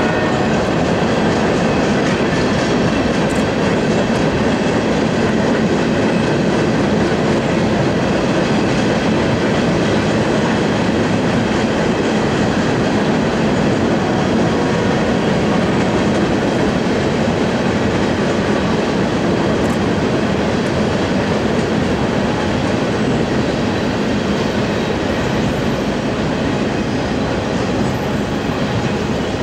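Freight cars of a Union Pacific manifest train rolling steadily across a steel railway bridge, wheels running over the rails and bridge deck.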